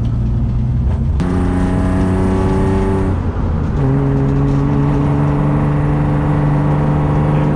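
A BMW E36 car's inline-six engine running under load while driving. It jumps up in pitch about a second in and holds steady, drops out briefly near the middle, then settles at a lower steady pitch, as with a gear change. The owner reports that this engine misfires once it reaches operating temperature and at full throttle.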